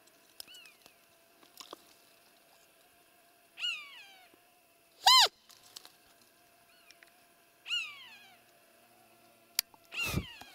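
Roe deer lure call blown in short, high peeps that fall in pitch, imitating a doe's fiep, about every two to three seconds, with one louder, sharper squeak midway: the rutting-season call that draws a roe buck in. A click and a low thump come near the end.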